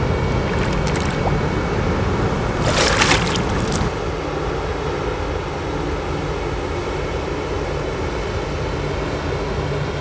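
A splash about three seconds in as a released largemouth bass kicks away through the water, over a steady rumble. After that, a steady rumble of a freight train crossing a rail bridge.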